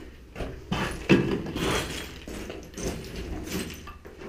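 Irregular footsteps and scuffs on loose gravel and rubble over a concrete floor, with a few soft thuds as the player moves about.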